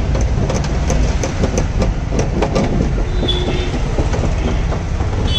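Screwdriver clicking and scraping against the bare steel inner panel of a Mahindra MM550 jeep door in irregular sharp ticks, over a loud steady low rumble.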